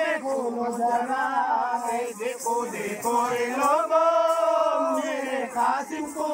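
A man singing a Muharram devotional song, the melody bending between notes with a long held note about midway.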